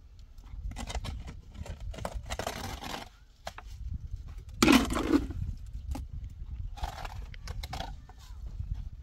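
Steel shovel scraping and slapping wet mortar onto a course of concrete blocks in several strokes, the loudest about halfway through, over a steady low rumble.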